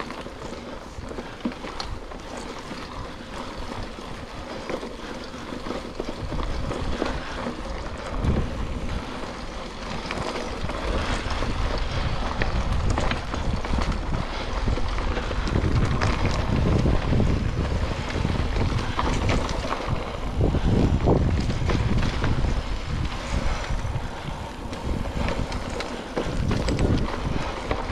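Mountain bike rolling along a dirt singletrack trail: tyre noise and bike rattles under wind buffeting the microphone. It grows louder and heavier from about six seconds in, with scattered clatters.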